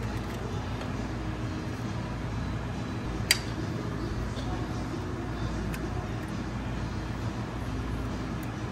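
A sharp metallic click about three seconds in and a fainter one later, from tools working on the forklift's drum-brake shoe hardware, over a steady low hum.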